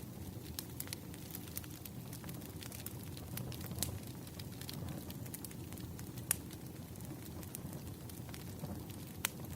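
Burning firewood crackling: sharp, irregular pops and snaps over a low, steady rumble of the flames, with one louder pop about six seconds in.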